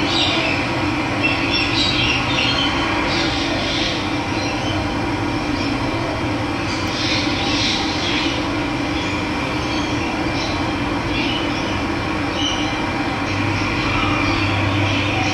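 Steady rushing of running water, with birds chirping here and there above it.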